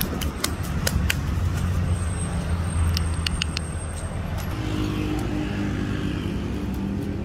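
Low steady rumble of a motor vehicle engine, with scattered sharp clicks over the first four seconds. About four and a half seconds in it changes to a steady hum on one pitch.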